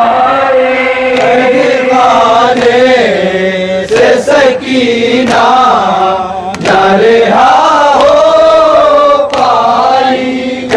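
Male voices chanting a nauha, a Shia mourning lament, in unison, the melody rising and falling in long sung lines. A few sharp slaps cut through, typical of matam, hands striking chests.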